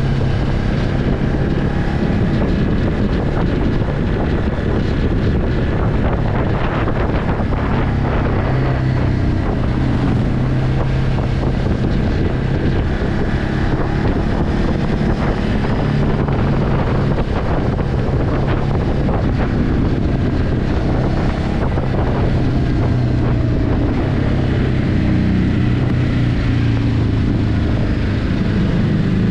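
Ducati Hypermotard 950's 937 cc Testastretta L-twin engine on its stock exhaust, running steadily at cruising revs while riding, with wind noise over the microphone. The revs climb a little near the end.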